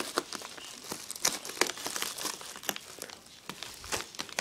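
Plastic padded mailer crinkling and crackling irregularly as it is cut open with scissors.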